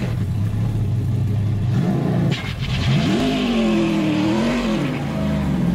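Car engine running at a steady idle, then revved: from about three seconds in its pitch rises and falls several times as the throttle is blipped.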